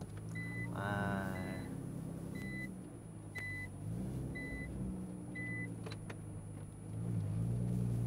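Nissan GT-R's twin-turbo V6 running at low speed, rolling slowly and growing louder near the end as it comes close. A short high electronic beep sounds about once a second, six times over the first half and a little more.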